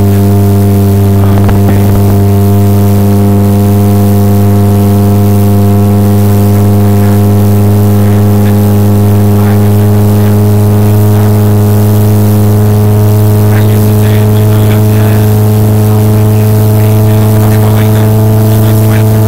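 Motorboat engine running steadily at towing speed, heard loud and close from aboard the boat. It is a steady drone whose pitch creeps up slightly near the end.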